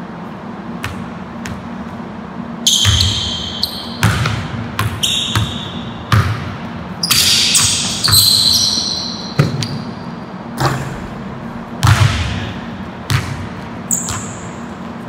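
A basketball bouncing repeatedly on a hardwood gym floor in a large, echoing hall, with sneakers squeaking sharply several times as the players move.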